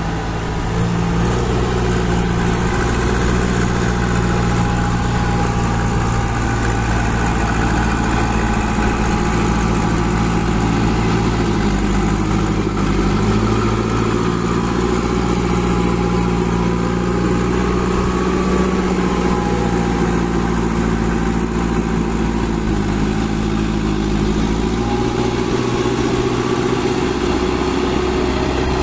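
Kirloskar diesel engine of a JCB 2DX backhoe loader running steadily, its speed dipping and picking up again a few times.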